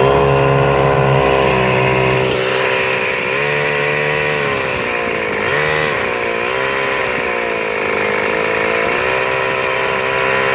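Small motorbike engine running under way, its pitch rising and falling several times as the throttle is opened and eased off.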